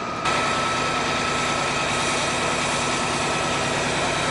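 Fire engine running steadily while a hose sprays water, a constant engine drone with a rushing hiss that starts abruptly a moment in.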